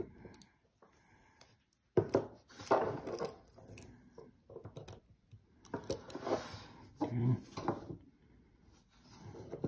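Hands handling cylindrical battery cells on a wooden table: irregular clicks, taps and scraping as the taped metal tab is worked off one cell and the cells are set down.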